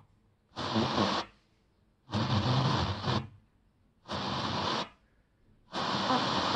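FM radio static from a Honda Breeze car head unit converted into a home radio: four short bursts of hiss with silence between them, as the tuner steps across frequencies with no station.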